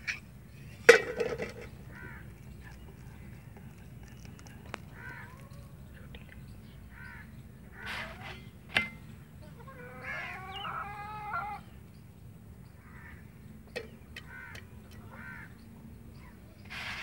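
Crows cawing again and again in short calls, with a sharp knock about a second in.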